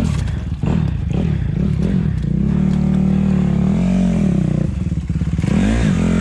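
Dirt bike engine revving in repeated bursts, the revs rising and falling, held higher in the middle and dipping and climbing again near the end, as the bike is stuck in deep mud.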